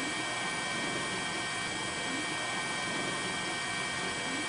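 Steady mechanical noise: an even hiss with several constant high whining tones, like the engine of an aircraft running unchanged.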